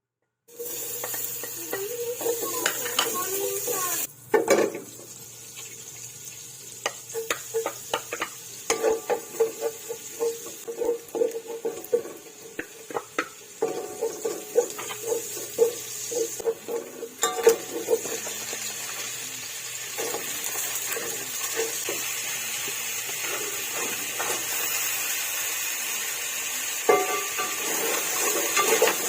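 Crabs cooking in Sprite in a pan, with a steady sizzling hiss. A utensil stirs them and knocks and scrapes against the pan in many quick clicks, mostly in the first two-thirds.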